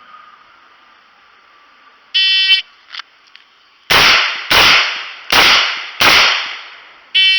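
An electronic shot timer's start beep, then four .38 Special shots from a Taurus 856 snub-nosed revolver, a bit under a second apart, two on each target. A second short beep near the end, five seconds after the first, marks the par time.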